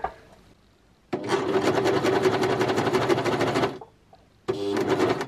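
Bernette B42 Funlock coverstitch machine stitching fabric with two needles threaded. It runs fast for about two and a half seconds starting a second in, stops briefly, then gives one short burst near the end.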